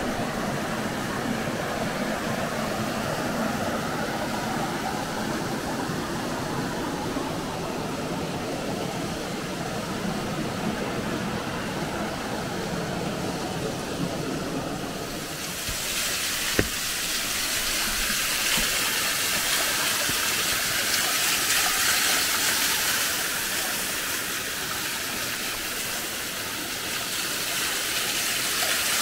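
Steady rushing noise that about halfway through turns brighter and hissier as the roar of a waterfall takes over. There is one sharp click just after the change.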